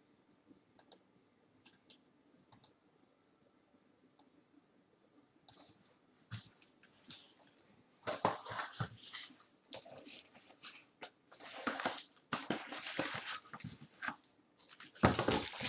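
Cardboard box being handled and opened by hand: a few light clicks, then from about five seconds in, repeated bursts of scraping and rustling as the flaps are worked and a cloth bag is drawn out of the box.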